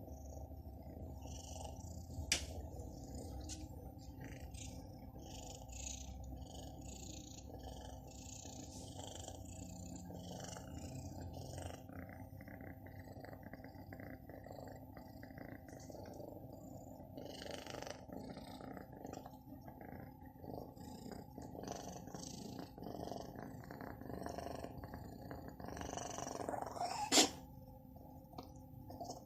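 Domestic cat purring steadily, with irregular hissy breath noises over the purr. A sudden sharp sound comes a couple of seconds in, and a louder one near the end after a short build-up.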